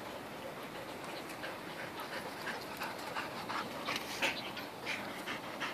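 A dog panting quickly, about three breaths a second, louder in the second half.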